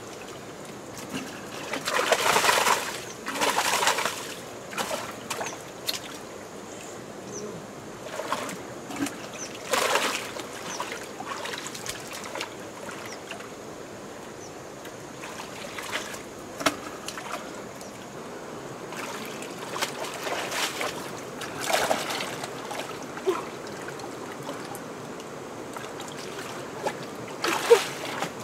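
Hands splashing and sloshing through shallow muddy water while groping for fish, in irregular bursts that are loudest about two to four seconds in, around ten seconds, and just before the end, over a steady trickle of water.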